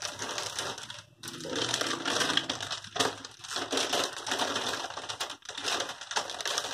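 Plastic packaging crinkling and rustling as it is handled, in irregular bursts with a few brief pauses.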